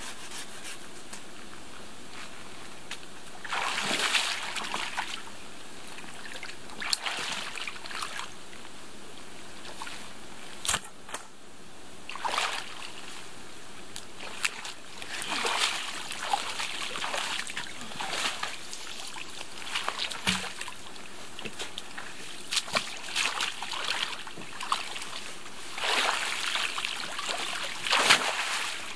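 Shallow lake water splashing and sloshing in irregular bursts as a person in hip waders wades about and hauls a waterlogged log out of the water, with the loudest splash near the end.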